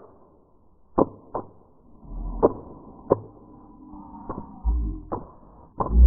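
A silly noise made by a person, played back in slow motion: about seven separate clicks, slowed and deepened, coming at uneven intervals with a faint low rumble between them.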